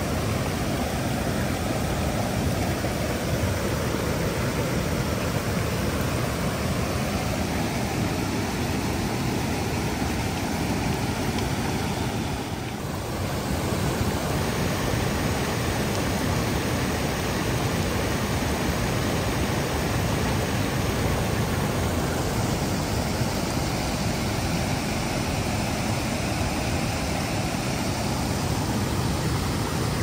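Water rushing over a series of small rock cascades: a steady rushing noise that dips briefly about thirteen seconds in.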